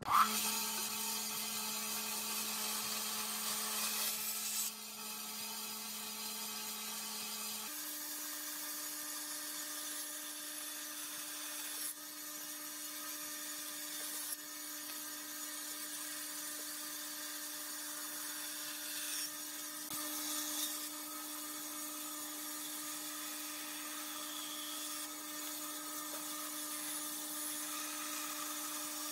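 Bandsaw running with a steady hum and whine as a thin wooden board is fed through its blade. The hum changes pitch once, about eight seconds in.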